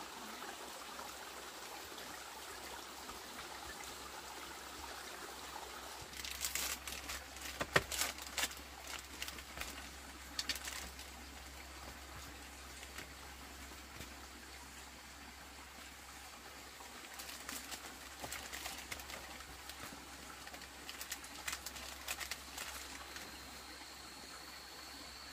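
A forest stream trickling over rocks, then scattered crinkles and clicks of a small foil packet being handled, the loudest about eight seconds in. A faint steady high whine begins near the end.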